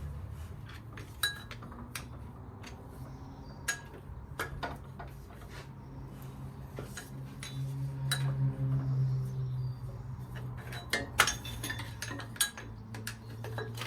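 Metal tools and engine parts clinking and tapping in irregular sharp knocks during work on an old Land Rover engine, with a steady low hum underneath.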